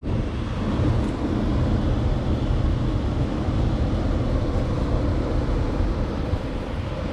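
Steady low rumbling noise, heaviest in the bass, with no clear events in it.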